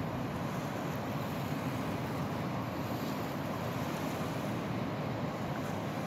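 Steady wind noise on the microphone mixed with the low wash of small waves breaking on a sand beach.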